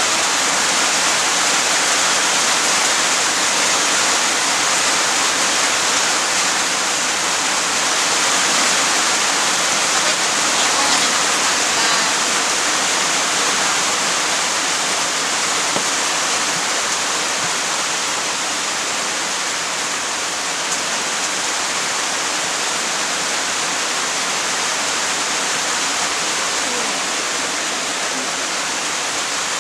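Heavy rain pouring steadily, a dense even rushing hiss.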